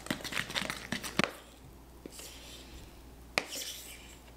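Cake batter being stirred in a mixing bowl: quick clicks and taps of the utensil against the bowl for about the first second, then quieter scraping, with a single sharp knock a little past three seconds in.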